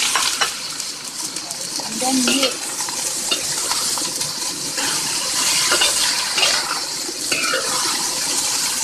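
Sliced bitter gourd and diced tomatoes sizzling in a hot wok as a spatula stirs them. There is a steady hiss of frying, with scattered scrapes and taps of the spatula on the pan.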